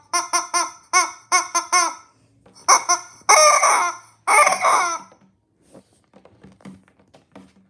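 High-pitched laughter: a quick run of short 'ha-ha' bursts, then two longer, louder bouts of laughing that trail off into faint sounds.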